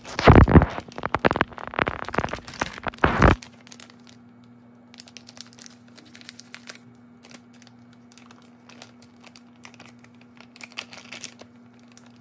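Plastic flour bag crinkling loudly as it is handled and emptied for about the first three seconds, then quieter scattered crinkles and snips as scissors cut open a second plastic bag.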